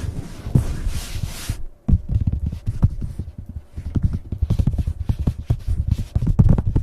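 Close-miked ASMR scratching: a dense, rough scratch for about a second and a half, a short break, then quick irregular scratching strokes with soft low thumps.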